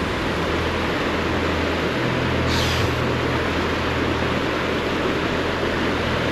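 Glacial creek rushing steadily, a loud, even wash of water noise with a low rumble underneath.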